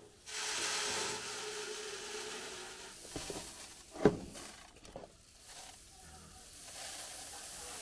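Unhulled rice grains pouring from a metal basin into the sheet-metal hopper of a rice huller, a steady rushing hiss. About four seconds in comes one sharp knock, the loudest sound, and the pouring hiss picks up again near the end.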